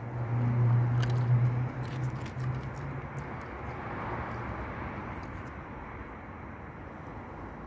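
Street traffic: a vehicle's engine hum, strongest in the first second or two and fading out by about three seconds, followed by the noisy wash of traffic that swells briefly and then settles to a steady murmur.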